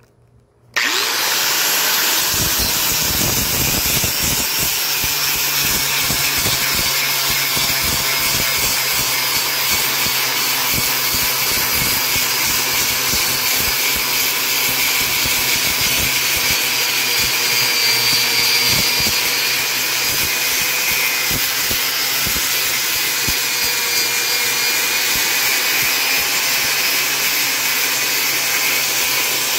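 Angle grinder with an 80-grit sanding disc running under load, grinding the gel coat and surface defects off a thick fiberglass sheet. It starts suddenly about a second in, then keeps a steady, loud motor whine with the rasp of the disc on the glass.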